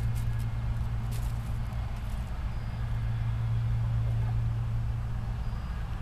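A steady low mechanical hum, like a running motor, with a few faint ticks over it.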